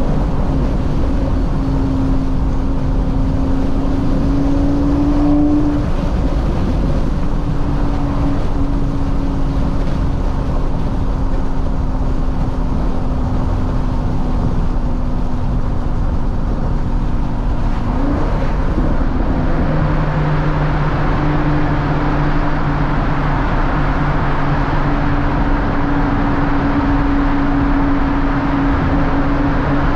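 Audi TT RS's turbocharged five-cylinder engine cruising at steady revs, heard from inside the cabin over tyre and road noise. The engine note holds nearly level. About two-thirds of the way through it shifts, a lower hum joins in, and the road noise grows louder.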